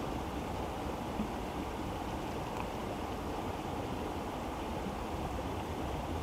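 Steady low rushing noise outdoors, with one soft knock about a second in.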